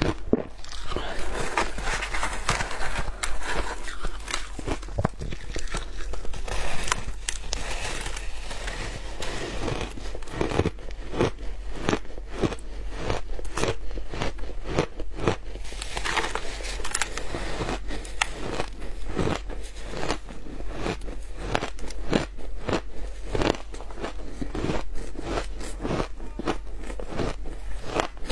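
Shaved ice crunching: gloved fingers dig and squeeze into a mound of shaved ice, and a mouth bites and chews it. The result is a dense, irregular run of crisp crunches and crackles, picked up close by a clip-on microphone.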